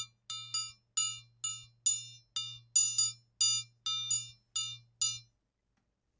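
A triangle being struck in a rhythm, often two quick strikes together, each giving a bright ringing tone that dies away fast. The playing stops about five seconds in.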